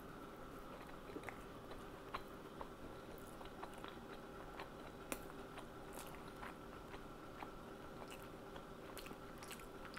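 Faint chewing of a bite of baked beef patty, with scattered small mouth clicks.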